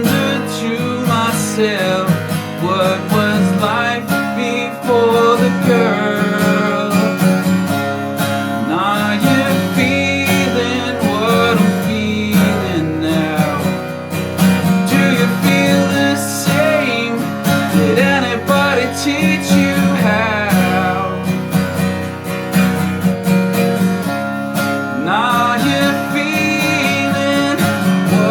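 Guitar music in an instrumental passage without singing, a lead melody line bending and wavering in pitch over steady accompaniment.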